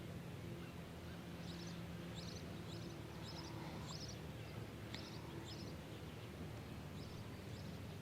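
Faint bird chirping: a run of short, high chirps, about two a second, over a steady low hum.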